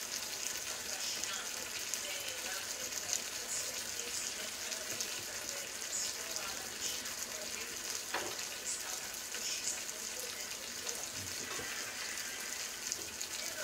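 A pan of chopped tomatoes, onion and peppers sizzling steadily on the hob, with small scattered pops and one light knock about eight seconds in.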